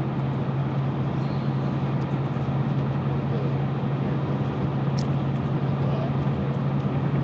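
A steady low machine drone, with a faint click about five seconds in.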